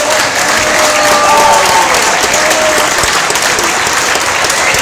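Audience applauding steadily, with a few voices calling out in the crowd.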